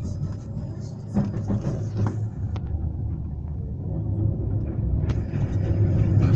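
Inside a 71-911 tram in motion: steady low rumble and hum of the running gear and drive, growing louder over the second half, with a few sharp clicks.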